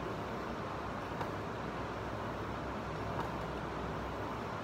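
Steel blade being rubbed back and forth on a sharpening stone: a steady scraping hiss with a few faint clicks.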